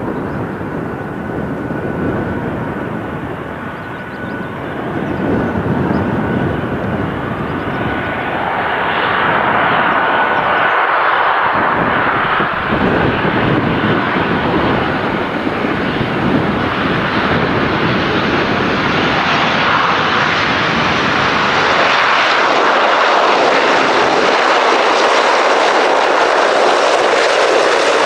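ATR 42-300 twin turboprop, with Pratt & Whitney PW120 engines, approaching and landing. The engine and propeller noise grows louder as the aircraft comes close, with a thin steady whine that fades about nine seconds in, and turns brighter and hissier in the last few seconds as the aircraft rolls out on the runway.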